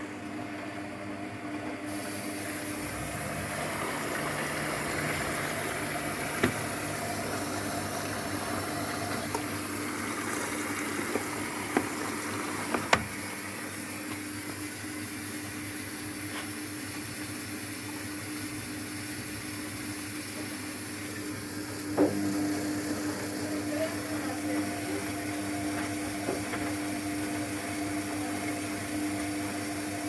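Luxor WM 1042 front-loading washing machine in its softener rinse: the motor hums steadily while water sloshes and laundry tumbles in the turning drum. A few short light knocks come through, around a quarter of the way in, twice close together near the middle, and once about two-thirds through.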